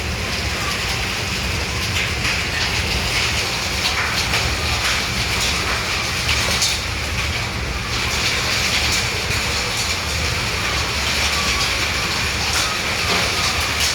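Heavy rain with hail, a steady loud hiss dotted with many small sharp ticks of hailstones striking, over a low rumble.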